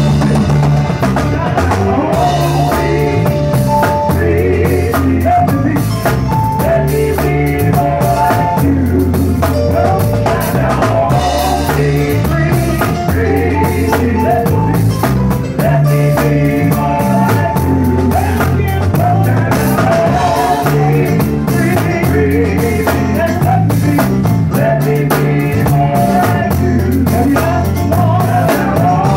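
Live gospel band playing through a song at rehearsal: drum kit keeping a steady beat under a strong, repeating bass line, with singing over it.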